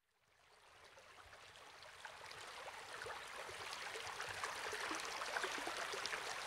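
Steady water noise, like a stream or falling water, fading in from silence over the first two seconds and then holding faint, with small scattered splash-like ticks.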